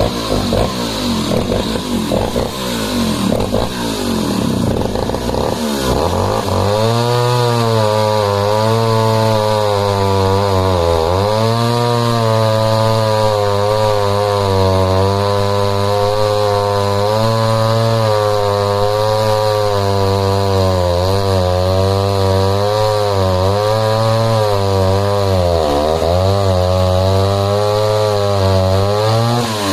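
Jonsered XF 110 cc two-stroke chainsaw cutting through a log with the bar buried fully in. The engine runs unevenly for the first few seconds, then holds a steady high speed, dipping briefly in pitch twice.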